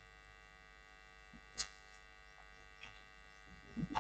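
A few scattered computer keyboard keystrokes, a handful of short sharp clicks with a small cluster near the end, over a steady electrical hum.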